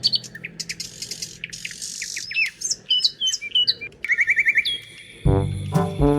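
Birds chirping: many short, high chirps sliding up and down, then a quick trill of about five repeated notes around four seconds in. Music with a steady low beat comes in loudly near the end.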